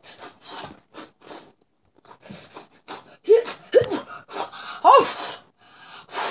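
A boy making karate sound effects with his mouth: a quick string of sharp, breathy hisses and puffs, with a few short cries that swoop in pitch around the middle.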